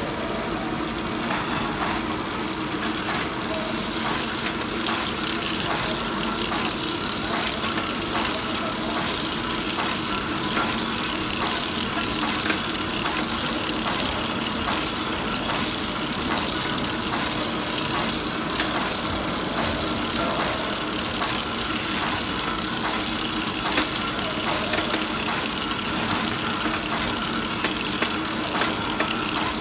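Shrink sleeve labeling machine running steadily: a constant mechanical hum from its motors and sleeve-feed rollers, with frequent rapid clicks and clatter as aerosol cans move along the conveyor.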